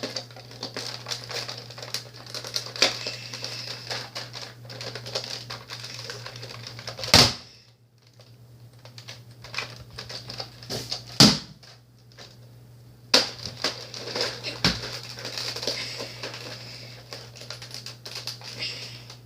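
Plastic clacking and rattling of a Nerf Elite Rampage pump-action dart blaster being worked by hand, the slide and mechanism clicking, with a few louder sharp snaps about 7, 11 and 15 seconds in. The blaster is failing to shoot properly from its magazine.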